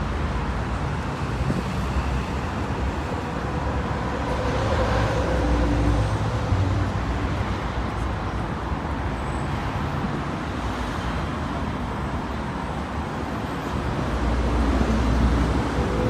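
Steady city street traffic noise, with the rumble of passing vehicles swelling louder about five seconds in and again near the end.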